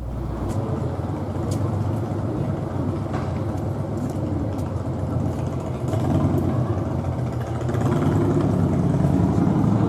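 Street traffic: car engines idling and passing, with a steady rumble that grows louder toward the end.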